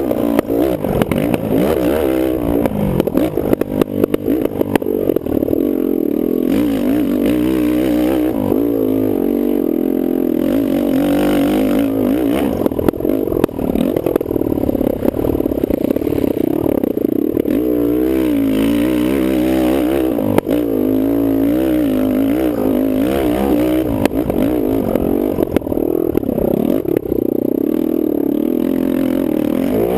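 Kawasaki KFX450R quad's single-cylinder four-stroke engine being raced, its pitch rising and falling continuously as the throttle is worked, with scattered clattering knocks from the machine.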